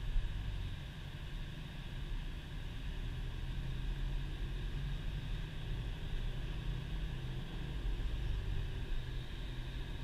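Engine and road noise inside the cabin of a 2010 Subaru Impreza cruising on a snow-covered road: the flat-four engine and the tyres on snow and slush make a steady low drone.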